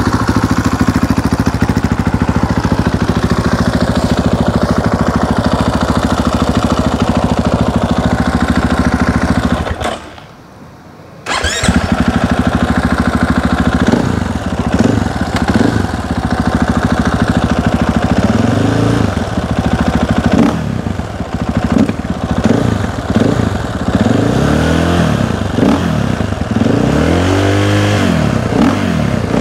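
KTM 500 EXC-F single-cylinder four-stroke dirt bike engine through an Akrapovič exhaust, idling steadily. About ten seconds in it dies away for a second or so and is started again. It is then revved in repeated throttle blips, rising and falling in pitch, coming more often toward the end.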